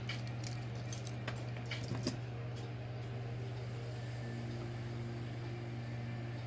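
Small metal costume-jewelry pieces clicking and jangling as they are handled, a few light clicks in the first two seconds, over a steady low hum.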